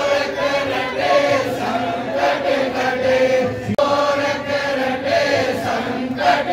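A group of voices chanting a Hindi devotional kirtan to Shiva in unison, with long held notes and no pause.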